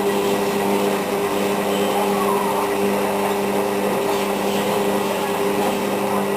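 Hotpoint WM62 washing machine on its spin cycle, running with a loud, steady mechanical noise over a steady hum; the owners think the drum spider and drum bearings are broken.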